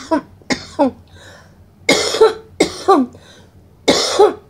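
A woman's coughing fit after a bong hit of cannabis smoke: about five coughs, roughly a second apart, each trailing off in a falling vocal sound.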